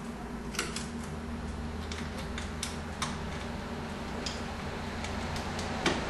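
Light, scattered clicks and taps, about ten in all, from handling the refrigerator's plastic ice maker water line and its mounting bracket, over a steady low hum.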